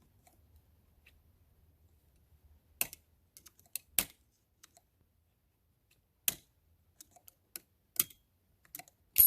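Snap ring pliers working a steel snap ring off an NP271D transfer case main shaft: scattered sharp metal clicks and taps a second or two apart, with the loudest click near the end.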